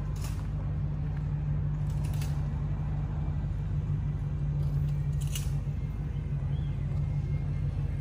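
Steady low hum of vehicle engines in city street traffic, with a few short high hisses.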